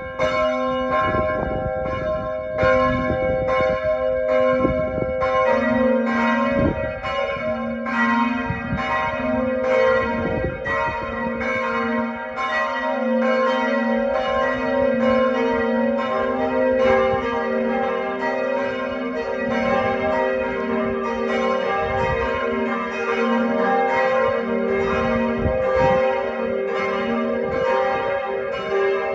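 Church bells ringing in a full peal, strikes overlapping steadily. A lower bell joins about five seconds in, and another joins a little past the middle.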